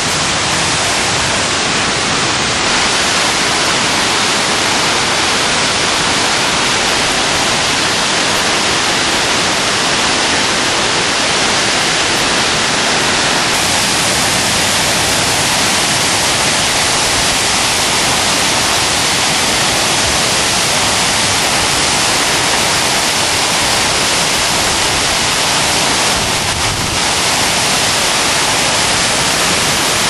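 Waterfall's falling water rushing loudly and steadily.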